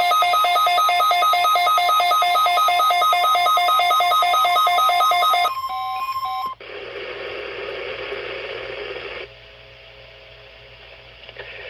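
NOAA weather radio warning alarm: a loud electronic alarm of fast-alternating tones. About five and a half seconds in it breaks off into a short steady tone, then a hiss of radio static that drops quieter a few seconds later.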